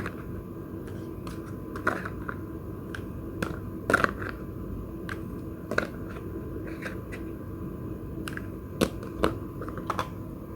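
Irregular light taps and clicks, a dozen or so, spaced unevenly over a steady low hum; the sharpest come about four seconds in and twice near the end.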